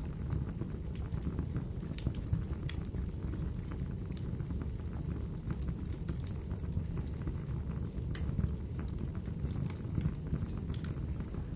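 Wood fire burning: a steady low rumble with irregular sharp crackles and pops.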